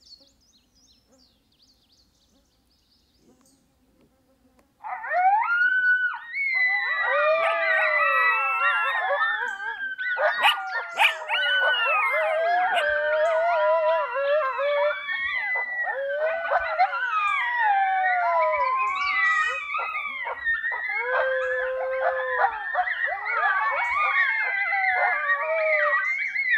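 Coyote howling and yipping: many overlapping calls that rise and fall start suddenly about five seconds in, after near silence, and carry on without a break. It is a coyote pup howling along with a game call's coyote vocals.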